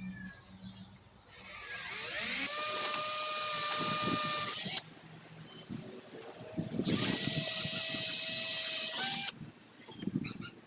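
Hercules 12-volt cordless drill boring pilot holes for a latch: two runs of a steady motor whine, each about three seconds long, the first rising in pitch as the drill spins up.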